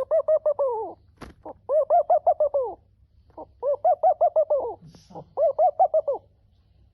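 Dove calling in quick bouts of short hooting notes that rise and fall, about seven or eight notes a second, four bouts in a row. A sharp click falls between the first two bouts.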